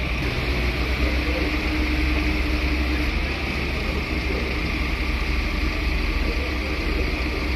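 Tow truck's engine running steadily as its crane lifts an ATV off the street.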